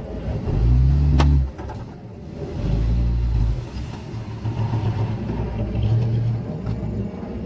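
Engines of heavy earthmoving machines, dump truck and bulldozer, running and revving in repeated surges that rise and fall, with a single sharp tick about a second in.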